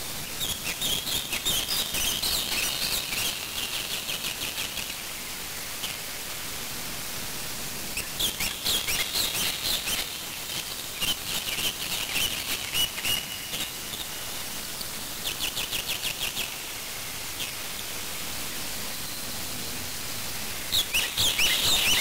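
Bouts of rapid, high-pitched chattering bird calls, each lasting a few seconds, with pauses between them, over a steady hiss.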